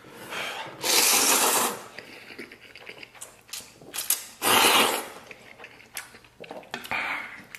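A man slurping a mouthful of noodles twice, loud sucking pulls about a second in and again about four and a half seconds in, with wet chewing clicks between.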